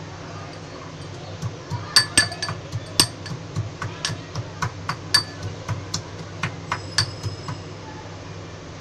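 Metal pestle pounding garlic and green chillies in a small steel mortar: a run of sharp metallic clinks with a brief ring, about three or four a second. The clinks start a second and a half in and stop near the end.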